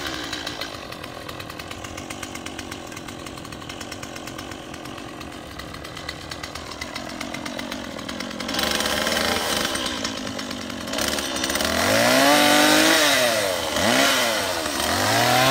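Chainsaw idling steadily, then revved up in several rising-and-falling surges from about eight seconds in as it is worked into tangled vines and brush.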